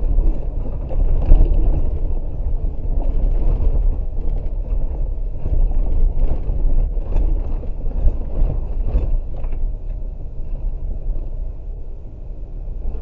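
Inside a 4WD's cab, driving slowly along a gravel forest track: low engine and road rumble with tyre noise over the dirt, and repeated short knocks and rattles as the vehicle jolts over the rough surface. It eases off a little near the end.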